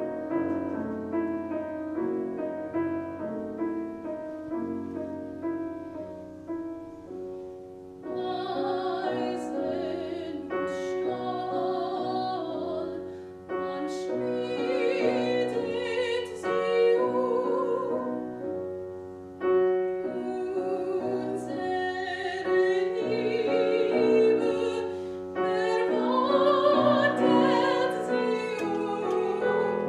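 Grand piano playing a classical introduction alone. About eight seconds in, a mezzo-soprano starts singing in operatic style with wide vibrato, over the piano accompaniment, in phrases with short breaths between them.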